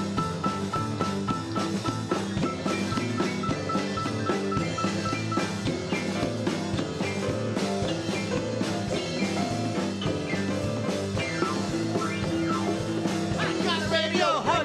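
Live band playing an instrumental passage of an acoustic pop song on keyboard, drums and percussion, with a repeated high note early on; a singing voice comes in near the end.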